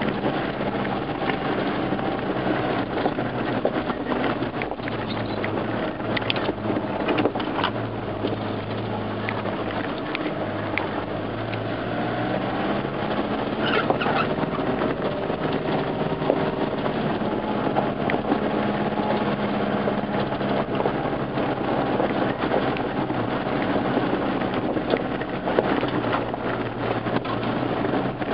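Off-road 4x4 vehicle's engine running at low speed along a rough track, its pitch shifting with the throttle, with scattered knocks and rattles from the body over bumps.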